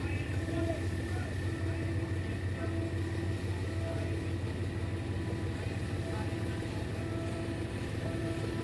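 GEK diesel-electric locomotive engine running at a steady low idle: a constant deep hum with a few steady higher tones over it.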